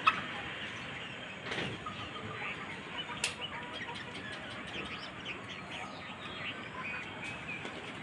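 Small birds chirping and twittering in a steady stream of short calls, with a sharp knock right at the start and a couple of fainter clicks.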